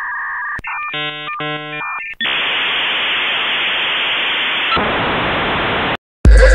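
Dial-up modem handshake: steady modem tones, then about a second of rapid warbling chord-like tones, then a loud, even hiss of static for nearly four seconds that cuts off suddenly. Loud electronic music starts just before the end.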